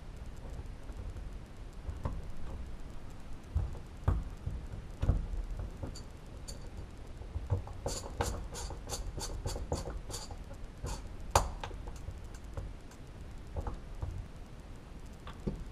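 Screwdriver turning a screw into a car's floor pan: scattered small metallic clicks and knocks. Midway there is a quick run of about a dozen light clicks over two or three seconds, followed by one sharper knock.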